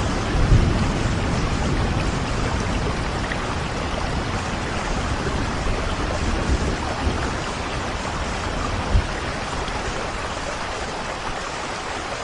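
Steady rain falling, with a low rumble of thunder about half a second in that fades away.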